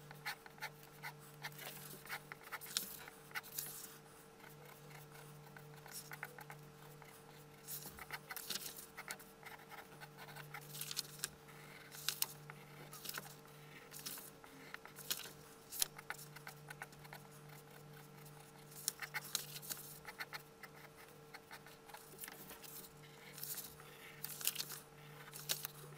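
Pencil lead scratching across paper in short, irregular strokes as ellipses are sketched, over a steady low hum.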